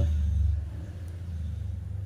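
Low engine rumble, loud at first and easing off about half a second in, then carrying on more quietly.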